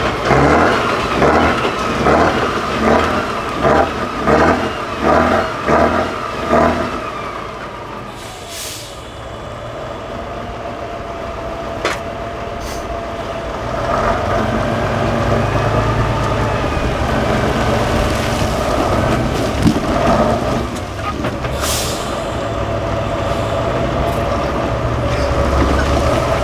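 Off-road trial truck's diesel engine revving in a quick series of surges for the first several seconds, then running steadily and pulling harder from about halfway. Two short air hisses come through, one about nine seconds in and one near the end.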